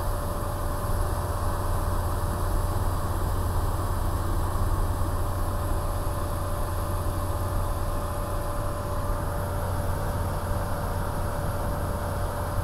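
Light single-engine aircraft's piston engine and propeller droning steadily, heard from inside the cockpit, with a constant low hum and a thin steady whine above it. The plane is climbing with power eased back to bring the cylinder head temperature into the green.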